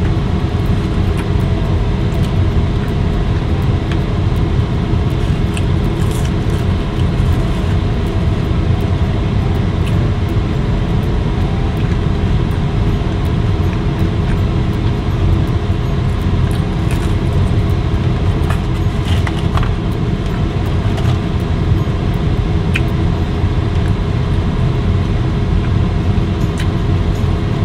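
Steady low rumble and hum of a running car, heard from inside the cabin, with a few faint clicks from eating.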